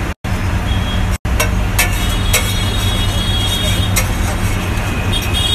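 Eggs frying on a large flat iron griddle over a steady low rumble, with a few sharp clicks of the spatula against the griddle; the sound drops out briefly twice near the start.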